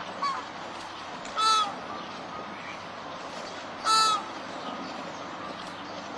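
Flamingo honking: two short, loud calls about two and a half seconds apart, with a fainter call just after the start, over steady background noise.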